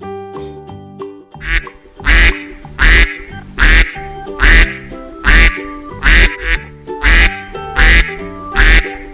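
A duck quacking loudly over and over, one quack about every 0.8 seconds starting about a second and a half in, over background music.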